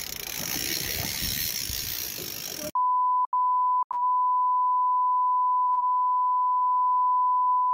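Wind buffeting the microphone with sea noise for under three seconds. Then the sound cuts to a steady 1 kHz bleep tone of the kind dubbed in to censor swearing, which breaks off twice briefly near its start and then holds.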